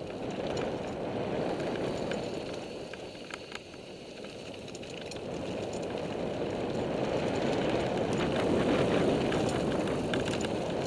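Wind rushing over a helmet-camera microphone during a ride along a dirt trail, getting louder in the second half as speed picks up, with scattered faint ticks of gravel.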